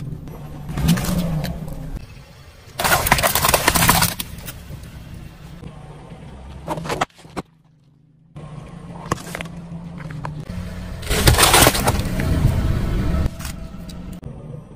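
Car tyre rolling over and crushing plastic bottles and food packages, in a run of separate clips. There are loud crunches and cracks about three seconds in and again late on, over a car engine idling low. Sound drops out for about a second midway, at a cut.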